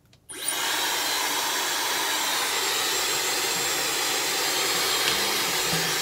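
Dyson Supersonic hair dryer switching on just after the start and running steadily on high speed and high heat: a loud, even rush of air with a faint high whistle in it.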